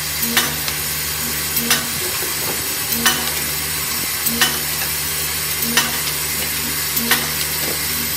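Paint roller handle iron-ring inserting machine running: a sharp clack about every 1.3 seconds as it cycles, over a steady hiss and low hum.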